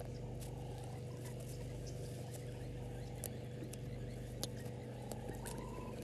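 Bush ambience: a steady low hum under scattered short, sharp chirps and clicks from small wild creatures, with a brief whistle-like note near the end.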